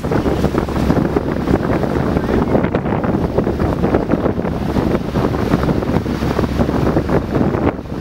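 Loud wind buffeting the microphone, a steady rough noise with no letup.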